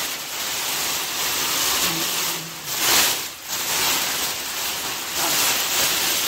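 Large thin plastic cover being pulled up and off a refrigerator: loud crinkling and rustling of plastic sheeting that swells and fades, loudest about three seconds in.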